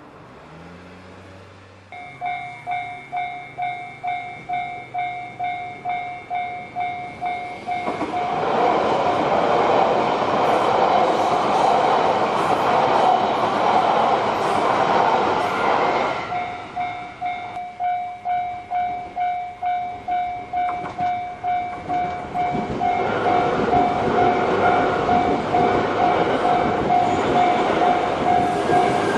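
A Japanese level-crossing alarm starts ringing about two seconds in, a steady electronic clang about twice a second. About eight seconds in, an E3-series Yamagata Shinkansen train runs over the crossing for some eight seconds, its rumble covering the bell. After a few seconds of bell alone, train noise rises again near the end.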